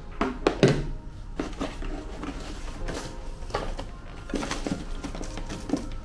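Irregular light knocks, clicks and rustles from small plastic vacuum-cleaner accessories and their packaging being handled.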